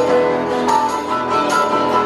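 Dance music playing: a melody over a steady beat, with a sharp high accent on the beat.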